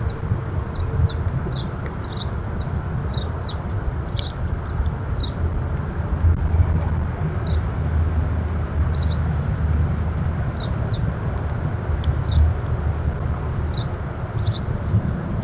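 Wild birds chirping: short, high, falling chirps, often in pairs, every second or so, over a steady low rumble.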